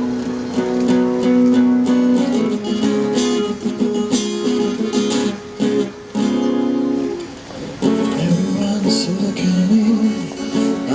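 Acoustic guitar strummed in chords, an instrumental passage in a steady rhythm.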